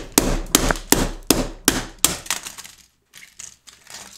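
Claw hammer striking the plastic case of a Sony Walkman WM-EX102 cassette player, quick blows about three a second to crack it open. The blows stop about two seconds in, followed by a few softer knocks and clatter of plastic parts.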